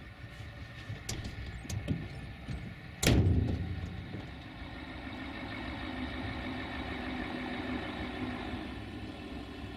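A few light clicks, then one loud bang about three seconds in, followed by a steady idling engine hum.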